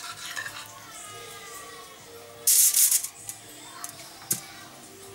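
Aluminium foil crinkling and a spoon scraping in a bowl as marinade is spooned onto fish in a foil-lined oven tray, with one loud half-second crinkle about two and a half seconds in and a couple of small clicks.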